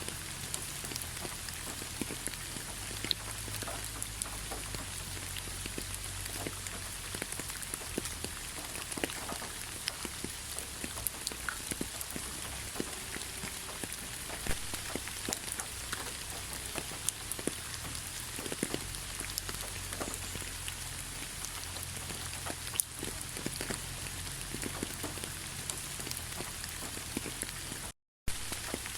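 Steady rain with many distinct drops ticking on a surface. It cuts out to silence for a fraction of a second near the end.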